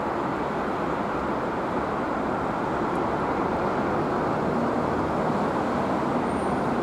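Steady, even rumble of traffic and railway noise, with no horn, brake squeal or distinct wheel clatter standing out.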